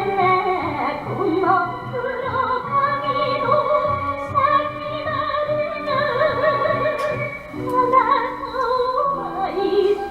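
Music: an enka-style song, a wavering melody with heavy vibrato over instrumental backing.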